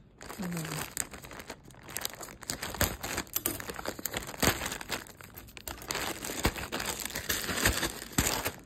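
Plastic poly mailer bag crinkling and crackling as it is handled, with many sharp crackles throughout.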